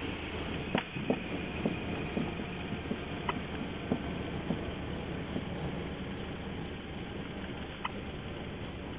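A Piper PA-28-180's four-cylinder Lycoming O-360 engine and its tyres make a steady low rumble on the landing rollout, heard from the cockpit. A string of sharp irregular knocks comes from the wheels rolling over the runway, most of them in the first five seconds.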